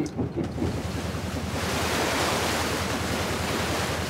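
Wooden boat under way: its engine chugs steadily, and from about a second and a half in, water rushing along the hull grows in, with wind on the microphone.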